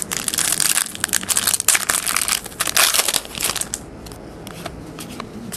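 Card-pack wrapper crinkling and crumpling, dense for about the first three and a half seconds, then lighter clicks as the cards are handled.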